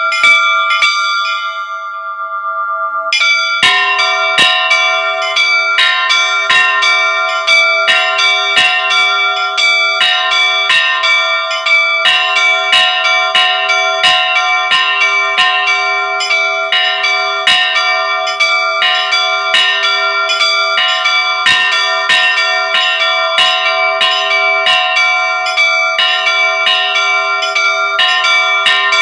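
Church bells rung by hand in the bell tower. One bell is struck and left ringing, then from about three and a half seconds in several bells are struck over and over in a quick, steady pattern, layering their ringing tones in a continuous peal.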